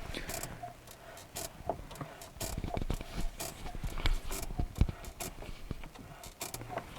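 Irregular short squeaks and clicks from a Renault Duster 2's clutch as the pedal is worked. The owner first blames the clutch master cylinder; the squeak came from the clutch release bearing, which was then replaced under warranty.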